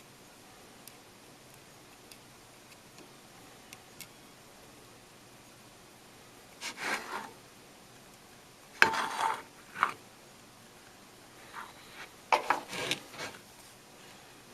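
A jeweller's hand tool scraping on a ring's metal prongs in several short bursts, with a few faint light ticks before them.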